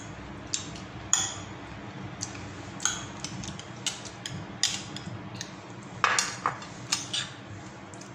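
Irregular light clicks and clinks of a spoon against ceramic plates and bowls during eating, with a small cluster of them about six seconds in, over a faint steady low hum.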